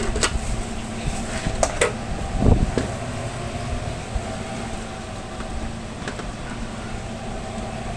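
Steady mechanical hum of a food truck kitchen's fans and refrigeration. A few light clicks and one low thump come in the first three seconds as plastic food containers are handled.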